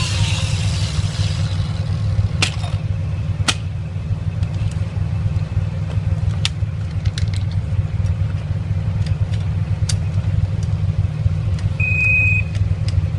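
Steady low rumble of an idling engine, with sharp metallic clicks and knocks of tools being worked on a motorbike's front wheel, the loudest two about two and a half and three and a half seconds in. A short high beep near the end.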